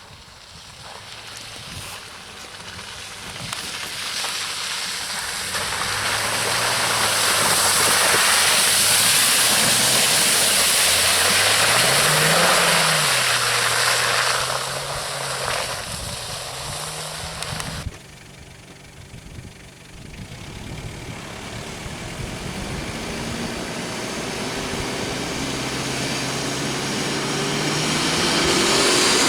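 4x4 SUV engine revving up and down while driving off-road, with a loud rushing noise over the middle stretch. The sound drops off abruptly about two-thirds of the way through, then the engine climbs steadily in pitch.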